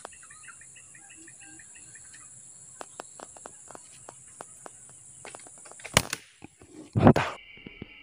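A steady high drone of insects with a bird chirping briefly at the start, then a single sharp crack of an air-rifle shot about six seconds in, followed about a second later by a second, louder burst.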